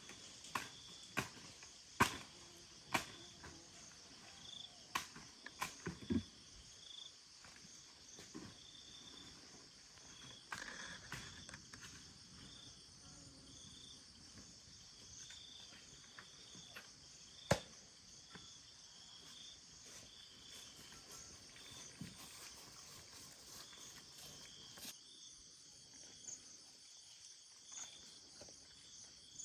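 Insects chirping steadily, with a short high note repeating over and over. Scattered sharp knocks cut through, several in the first six seconds and a loud single one about two-thirds of the way through.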